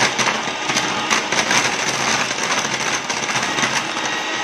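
Electric hand mixer running steadily as its beaters whip thick cake batter, with rapid clicking throughout.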